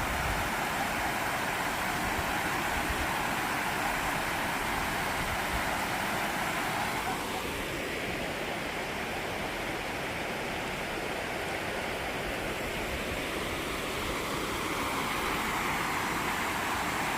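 Steady rushing noise of flowing water, even and unbroken, with no distinct events.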